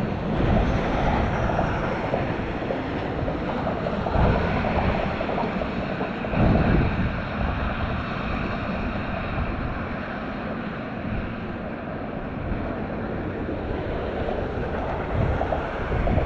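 Wind buffeting the microphone outdoors: a steady noisy rush, heaviest in the low end, swelling briefly about four and six and a half seconds in.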